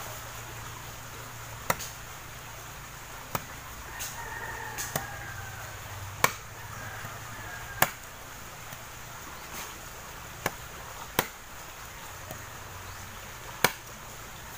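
Bolo machete chopping into an upright wooden pole: about ten sharp, irregularly spaced cracks as the blade bites the wood.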